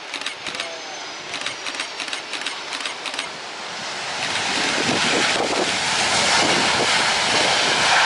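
Airbus A330-300 airliner landing: a faint falling engine whine under a run of short clicks, then from about four seconds in, as the jet touches down, its engine noise swells into a loud, steady roar during the rollout.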